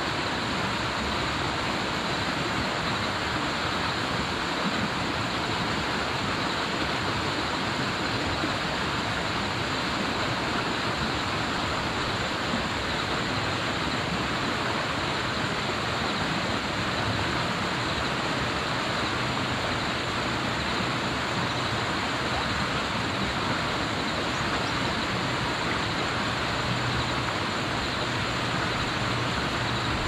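Rushing water of a fast-flowing stream in spate, a steady even noise.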